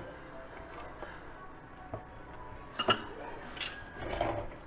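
Faint kitchen handling sounds over a low room hiss: a small click about two seconds in and a sharper click about three seconds in, like a utensil or container being picked up.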